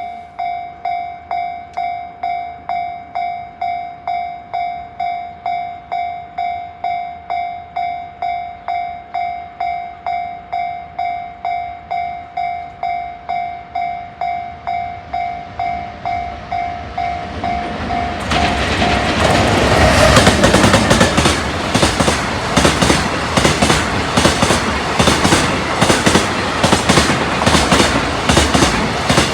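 Japanese level-crossing alarm ringing in a steady two-beats-a-second pattern. About 18 seconds in, a freight train drawn by an electric locomotive arrives and passes, its wheels clicking rhythmically over the rail joints; the alarm fades out soon after the train arrives.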